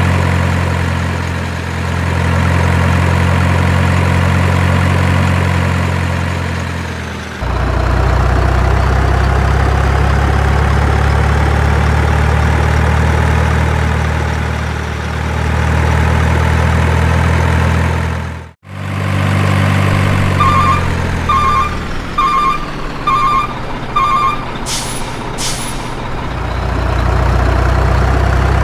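Heavy truck diesel engine idling steadily, with two abrupt jumps in the sound. About three quarters of the way through come five reversing beeps, then two short air-brake hisses.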